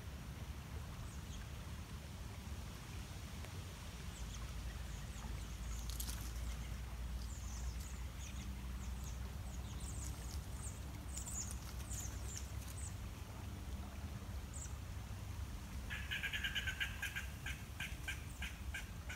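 An animal calling rapidly over and over near the end, over a low steady rumble. Faint high chirps come scattered through the middle.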